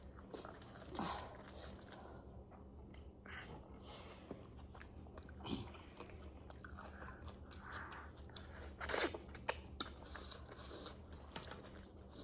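Close-miked eating: chewing and biting food, with faint mouth clicks and soft crunches, and a louder burst about nine seconds in.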